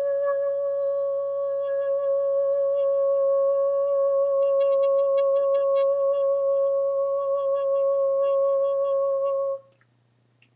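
A woman toning: one long, steady hummed note held on a single pitch, cutting off shortly before the end.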